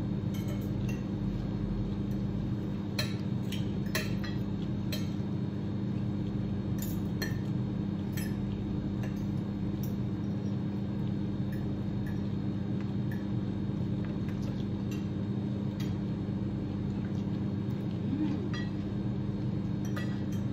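Metal spoons and forks clinking now and then against ceramic plates as people eat, over a steady low hum.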